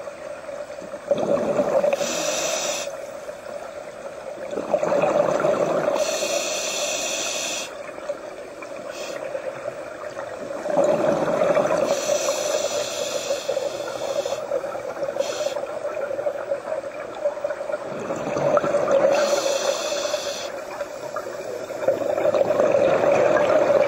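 A scuba diver breathing through a regulator underwater, about four slow breaths. Each breath is a hiss from the regulator's demand valve on the inhale and a burst of bubbles on the exhale.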